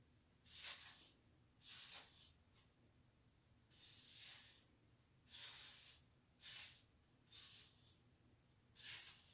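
Faint swishes of a paddle brush being drawn through the long straight hair of a lace-front wig: about seven separate strokes, roughly a second apart, one longer near the middle.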